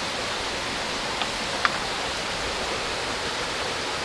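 Steady rush of falling water from a waterfall, an even hiss that holds at one level, with two faint clicks a little over a second in.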